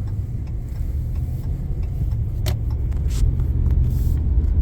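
Steady low rumble of road and engine noise from a vehicle under way, heard from inside the cab, with a couple of light clicks.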